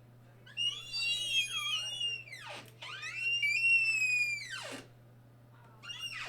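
Squeaky bedroom door hinges squealing as the door is swung: two long, high squeals of about two seconds each, each sliding sharply down in pitch as the door stops, and a third starting near the end.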